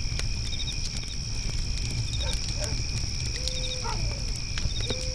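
Wood fire crackling with frequent sharp pops, over a steady high insect trill and crickets chirping in short bursts about every second and a half. In the second half, faint animal calls: two short, level hoot-like tones with brief glides.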